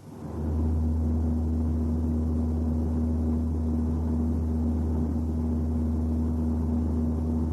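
A steady low rumbling drone with one constant hum tone over it, swelling up within the first half second and then holding unchanged.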